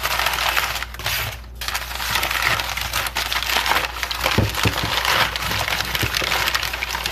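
Brown kraft packing paper crumpling and crinkling as it is handled and unwrapped, with a short lull about a second and a half in. A few dull knocks come partway through.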